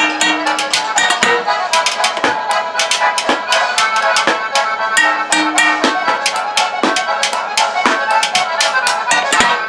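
Lively folk music played on junk percussion: rapid stick-tapping with a low beat about once a second and a few held notes. The music stops abruptly at the end.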